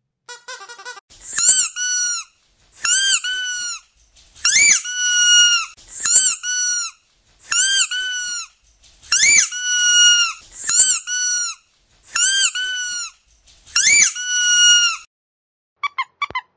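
A squeaky dog toy squeezed over and over: about nine loud squeaks, each about a second long, rising in pitch and then holding, roughly one every second and a half. A short fluttering squeak comes just before them, and a few quick, short chirping squeaks near the end.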